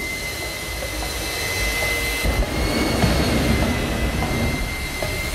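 Jet-powered semi truck's turbine engine running, a steady roar with a high whine held throughout, with a few low thumps as flames shoot from its exhaust stacks.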